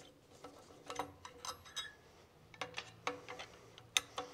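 Faint, scattered metallic clicks and clinks of a steel bracket and guard being worked loose and lifted off the DEF doser mount on a diesel exhaust decomposition tube. The sharpest click comes near the end.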